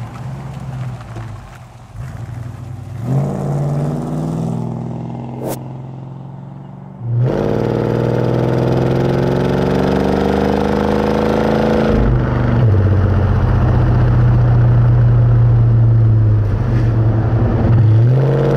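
1968 Dodge Charger R/T's 440 cubic-inch (7.2-litre) Chrysler big-block V8 heard through its exhaust: the car drives past and away, then, close to the tailpipe, the engine pulls hard with its note rising for about five seconds. The note drops suddenly at an upshift of the three-speed automatic, runs steady, and starts rising again near the end.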